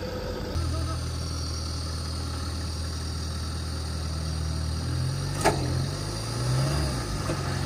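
Off-road 4x4's engine running at low revs, steady at first, then rising and falling in pitch from about five seconds in, with one sharp click partway through, as a stuck vehicle is winched out of a mud pit.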